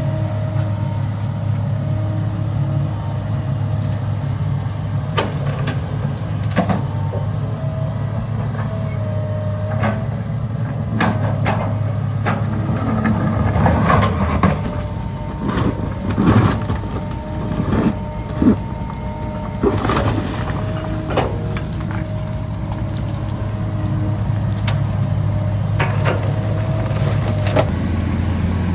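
Heavy diesel construction machinery running steadily with a low engine hum and a faint wavering whine. Sharp metallic clanks and knocks cluster in the middle, and the engine note changes near the end.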